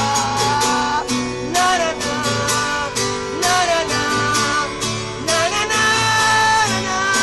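A man singing with long held notes while strumming an acoustic guitar.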